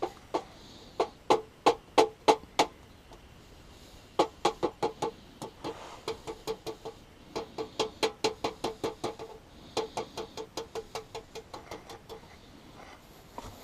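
A hammer striking metal, each blow carrying a short ringing note. It comes in a run of about eight blows, roughly three a second, then after a pause a longer, quicker run that grows softer toward the end.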